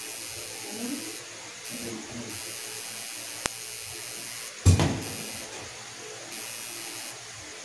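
Electric tattoo machine buzzing in short runs, stopping and starting several times as the needle works on skin. A sharp click about halfway through and a loud bump a little later.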